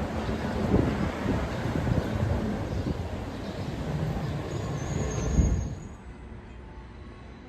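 Commuter train running, a loud steady rumble with a brief high squeal about five seconds in. About a second later the rumble drops away to a much quieter hum.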